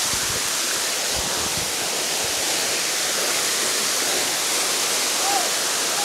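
Waterfall pouring down a rock face into a shallow pool: a steady, even rush of falling and splashing water.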